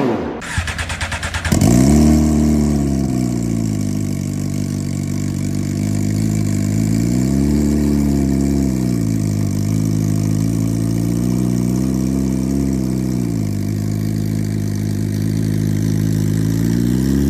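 Superbike engine cold-starting: the starter cranks for about a second and a half, the engine catches loudly and settles into a fast cold idle. The idle slowly rises and falls in pitch a few times.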